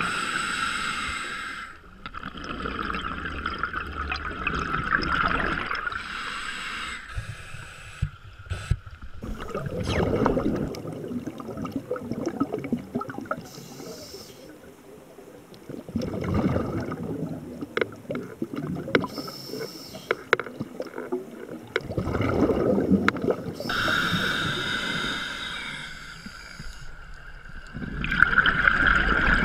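Scuba diver breathing through a regulator underwater: hissing inhalations alternate with rushing, gurgling exhaled bubbles, repeating every few seconds.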